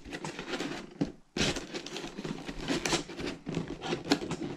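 Clear plastic packaging tray crinkling and knocking against a cardboard box as hands work it loose, in a run of short crackles and clicks. It drops off briefly about a second in, then starts again louder.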